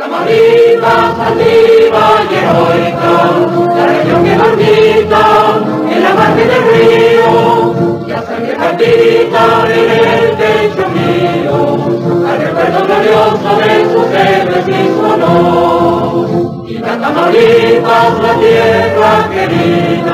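Background music: a choir singing a song in Spanish, with long held notes.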